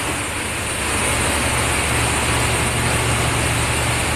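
A ship's generator engine running in the engine room: a loud, steady mechanical drone with a constant low hum underneath.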